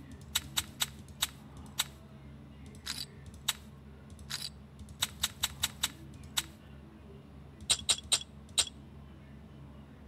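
Sharp computer-mouse clicks, about twenty of them, unevenly spaced with a couple of quick runs, as chips are clicked onto an online roulette betting table. A faint steady low hum lies underneath.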